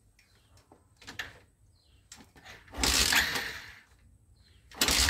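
Hero Glamour Xtec motorcycle being kick-started with its battery removed: two kicks, about three seconds in and again near the end, each a loud rush about a second long as the engine is spun over. The engine does not catch.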